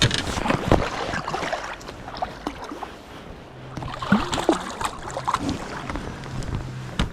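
Handling noises on a small fishing boat: scattered knocks and clicks, with wind on the microphone. A low steady hum joins about halfway through.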